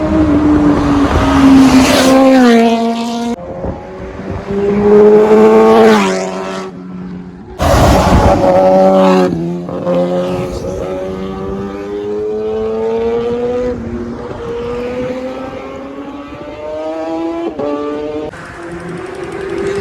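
Kawasaki ZX-10R's inline-four engine, fitted with a Racefit aftermarket exhaust, revving hard through several fly-bys. The pitch drops sharply as it passes, about 2, 6 and 9 seconds in. After that comes a longer run with the pitch slowly climbing.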